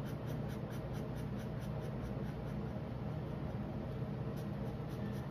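Felt-tip marker rubbing and scratching on paper as small areas are coloured in black, over a steady low hum.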